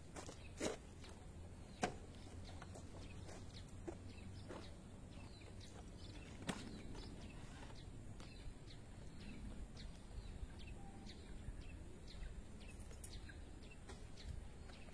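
Quiet outdoor ambience: faint bird chirps over a low background hum, with a few scattered clicks and knocks.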